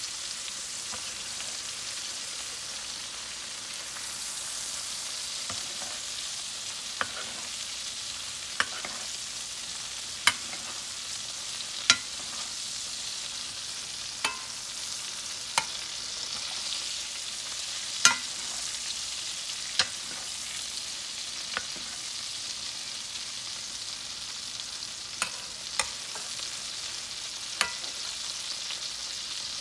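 Steak frying in butter and oil in a cast-iron skillet, a steady sizzle, while a metal spoon bastes it with the hot butter and juices, clinking against the pan about every two seconds.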